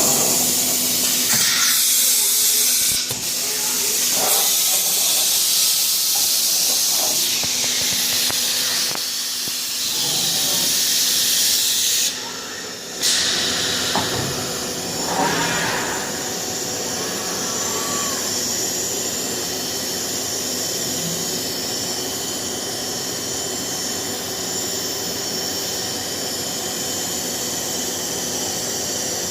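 Biesse Rover C 6.50 five-axis wood CNC machining centre running: a steady hiss with high whining tones, which briefly drops away about twelve seconds in.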